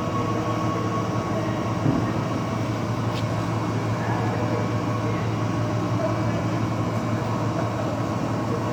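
Olive-oil decanter centrifuge running steadily: a constant low machine hum with steady tones above it, and a single small knock about two seconds in.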